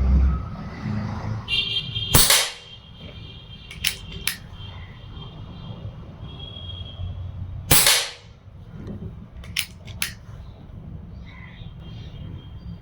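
Precihole PX100 Achilles PCP air rifle firing .177 pellets: two sharp shots about five and a half seconds apart. After each shot comes a quick pair of quieter clicks.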